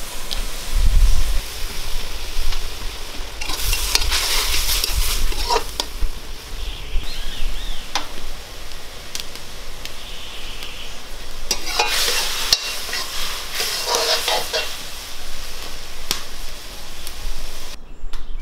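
Shrimp sizzling as they parch in a metal pot over a wood fire, with a metal spoon scraping round the pot in two bursts of stirring. The shrimp are being dry-roasted with salt to cook off their water.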